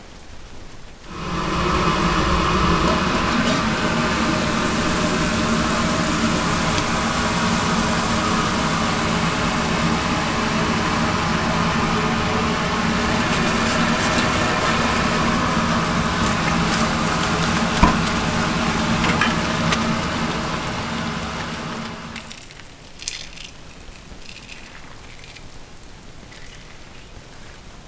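A machine running steadily with an even hum and hiss. It starts about a second in and fades out near the end.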